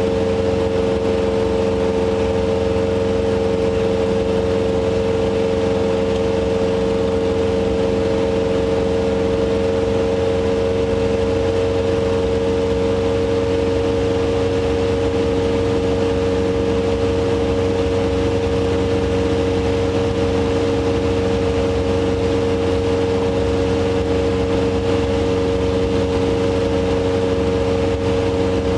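Robin HR200 light aircraft's piston engine and propeller droning steadily at climb power, heard from inside the cockpit.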